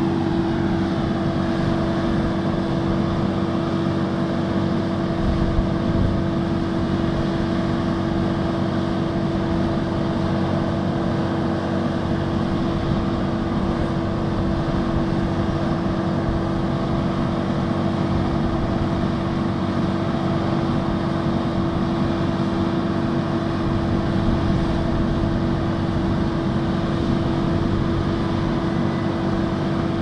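Kubota DR6130SX combine harvester's diesel engine and machinery running steadily while the combine stands still, with a constant hum-like tone over a low rumble.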